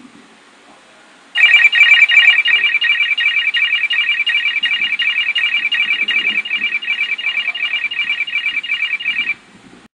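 K40 radar detector sounding its laser alert: a rapid, steady run of high-pitched electronic beeps, several a second. It starts about a second in and stops near the end.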